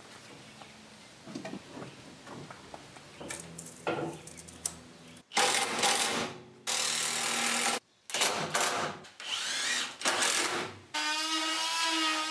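Power drill driving screws into 2x4 wood wall framing: light clicks and knocks of timber at first, then several loud runs of the drill motor, each about a second or two long, with short pauses between.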